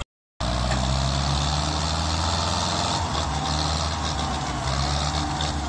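Belarus MTZ-50 and Fiat 640 diesel tractor engines running hard under load, a steady low drone, while pulling a sugarcane-loaded trolley stuck in mud. The sound cuts in after a brief silence at the very start.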